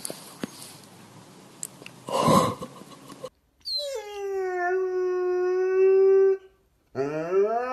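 Bernese mountain dog howling: one long howl that slides down and holds steady for a few seconds, then a second that starts low and rises near the end. Before it, a short loud sound about two seconds in over faint background noise.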